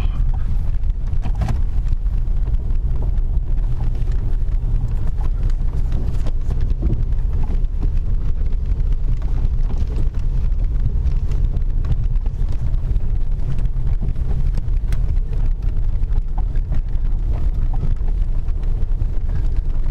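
Steady low rumble of a small truck's engine and tyres, heard inside the cab, with scattered knocks and rattles as it climbs a rough track.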